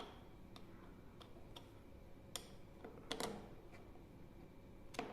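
Faint, scattered clicks and light knocks of stainless steel ball valve parts being handled and fitted together by hand. There are about eight irregular taps, the loudest a little after three seconds in.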